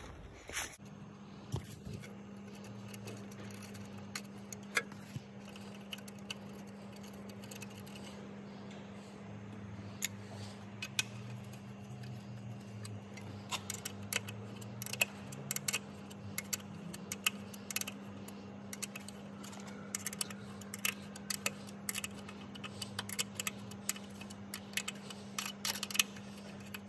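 Light metallic clicks and ticks as fender bolts with aluminium washers are handled and turned into the fender mount, scattered at first and more frequent from about halfway on, over a steady low hum.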